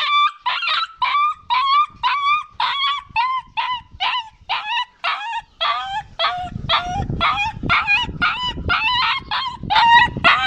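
Dog crying in short, high-pitched whining yelps, about two a second, over and over, the pitch sinking a little later on. A low rumbling noise runs underneath from about halfway through.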